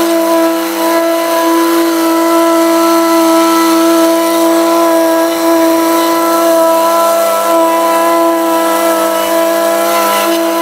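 Vibratory plate compactor's gas engine running steadily with an unchanging note as it packs a crushed limestone patio base.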